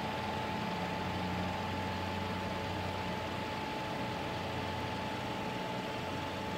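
Steady machine hum with an even hiss and a faint constant high whine.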